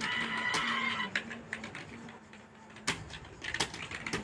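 Computer keyboard keys clicking irregularly as someone types, over a steady low hum. In the first second a held, high-pitched call sounds over the typing.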